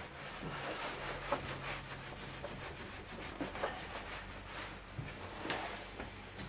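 A cloth rubbing and wiping along steel bar stock, cleaning it down with methylated spirit, in a steady scrubbing sound broken by a few light knocks.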